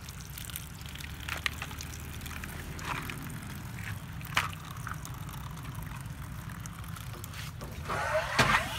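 Plastic toy trucks clicking and clattering as they are set down in a plastic mesh basket, over a steady low hum. About eight seconds in a louder rush of water-like noise starts.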